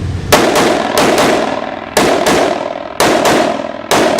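Semi-automatic rifle firing fast pairs of shots, about one pair a second, each shot sharp with a ringing echo behind it.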